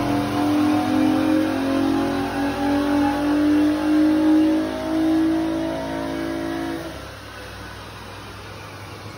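Holden VE's 3.6-litre SIDI LLT V6, fitted with aftermarket cams and a full exhaust, running hard at a fairly steady engine speed on a chassis dyno. About seven seconds in it drops away abruptly to a much quieter steady hum.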